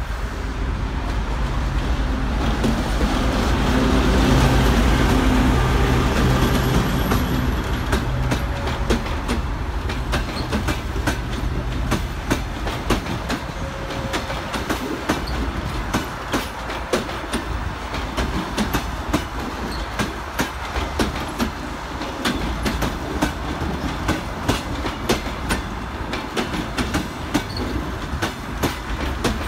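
A TEP70 diesel passenger locomotive passes, its 16-cylinder diesel engine droning loudest about four to five seconds in. Then the passenger coaches roll by, their wheels clicking over the rail joints in a steady clickety-clack.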